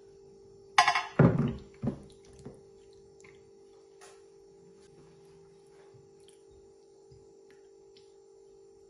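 Marinated chicken breast pieces tipped from a glass bowl into a glass baking dish: a sharp glass clink about a second in, then a few heavy wet slaps and plops as the meat and marinade slide in. Then only faint clicks of a spoon against the dish over a steady low hum.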